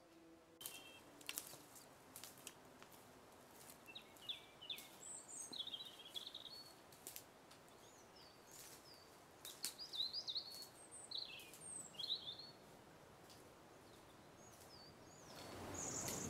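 Small songbirds chirping in short, sharp calls and trills, with scattered dry clicks, over faint outdoor background noise. Near the end, a rising swell of sound comes in.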